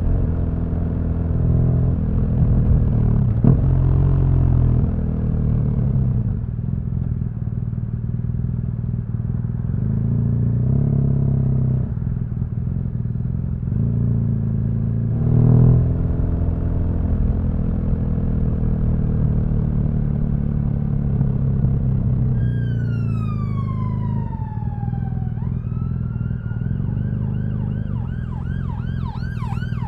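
BMW R1200GS flat-twin engine running in traffic, its pitch shifting with the throttle. About three-quarters of the way in, an emergency vehicle siren starts: one long falling wail, then a fast yelp.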